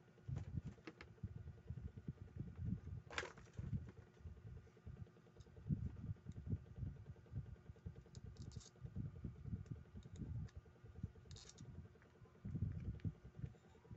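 Low, uneven rumble in the background, with a few light clicks of small metal reel parts such as washers being picked up and handled on a workbench.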